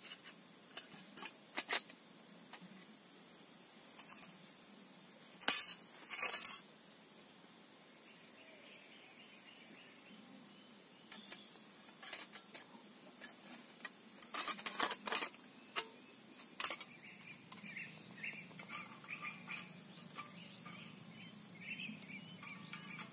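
Thin steel panels of a small folding wood stove clicking and scraping as they are handled and slotted together, with the two loudest scrapes about five and six seconds in and more clicks later on. A steady high insect drone runs underneath.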